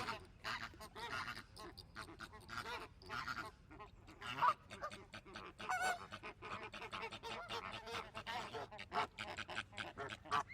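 A flock of birds calling: many short, overlapping calls in quick succession.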